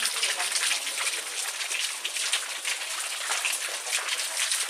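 Water from the grotto's trick-fountain jets spraying and splashing: a steady, unbroken hiss.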